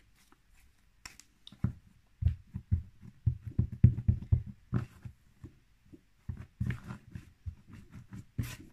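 Hands squeezing and kneading homemade cornflour-and-shampoo slime. It makes a run of quick, irregular soft squelches and pops, thickest about two to five seconds in and again near the end.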